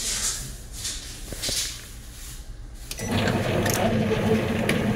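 Can seaming machine sealing an easy-open end onto a PET beverage can: a few short hissing noises, then about three seconds in the machine's motor starts with a steady hum and some clicks as the seaming head works the lid on.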